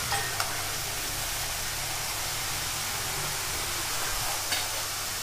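Kara sev dough strands deep-frying in hot oil: a steady, even sizzle, with a few faint ticks near the start and again near the end.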